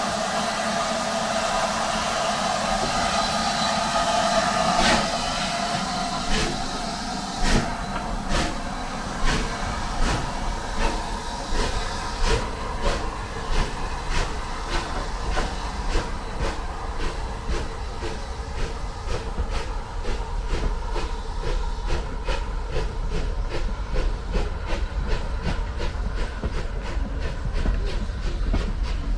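Steam train pulling out of the station. Steam hisses at first, then the wheels click over the rail joints, the clicks coming faster and faster as the train gathers speed.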